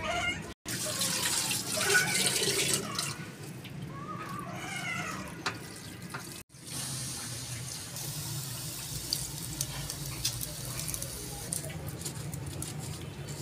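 Hot water pouring and splashing as boiled rice is drained out of a pot into a metal dish, with a brief high wavering cry partway through. Then a quieter low steady hum with scattered light clicks.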